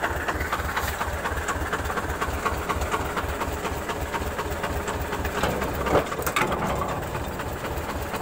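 The T-25 tractor's two-cylinder air-cooled diesel engine is running at idle with an even, rhythmic clatter. There is one louder metallic sound about six seconds in.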